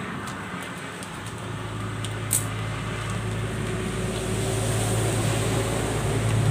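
Low, steady engine hum of a motor vehicle that swells in loudness from about a second and a half in. A single sharp snip about two seconds in as a plastic bag is cut open with scissors.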